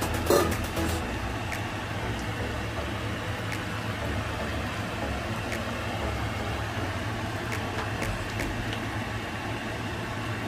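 Beef in soy-lemon sauce simmering in a steel skillet, with faint scattered pops over a steady low hum. A brief clatter comes about half a second in.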